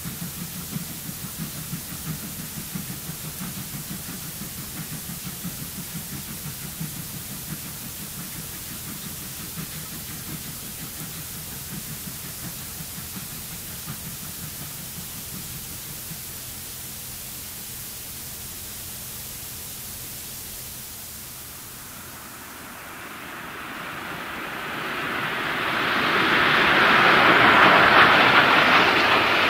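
Steam locomotive working a heavy train up a grade, heard at a distance as a steady low chuffing under film-soundtrack hiss. About two-thirds of the way through, a rising roar swells as a steam locomotive comes close, and it is loudest near the end.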